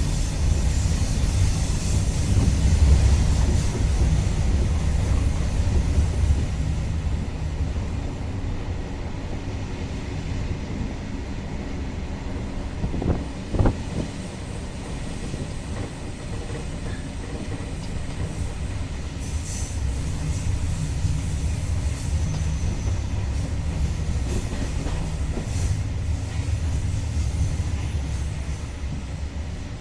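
InterCity train running on the track with a steady low rumble of wheels and carriages. A brief louder noise about halfway through, and faint high wheel squeals later on.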